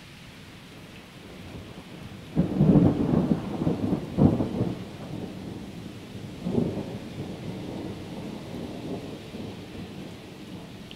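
Thunder over steady rain: a sudden sharp crack a little over two seconds in, a second loud peak about two seconds later, then another swell and a long rolling rumble that slowly fades.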